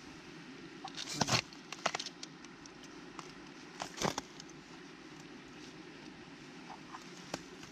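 Slush ice (shuga) crunching and crackling as a metal rod lifts a plug of it out of a hole in river ice, with a cluster of crackles about a second in and a single crack at about four seconds.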